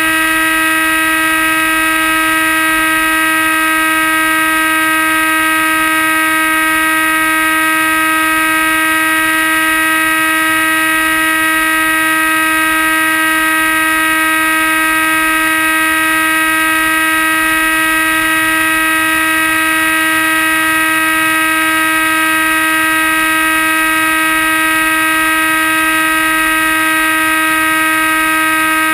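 The motor and propeller of an RC flying wing, heard from the camera on board, running flat out with a steady whine at one unchanging pitch. Full throttle is needed to carry the weight of the GoPro.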